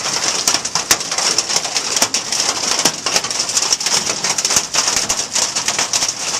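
Heavy hail coming down: a dense, steady clatter of countless small hailstone hits.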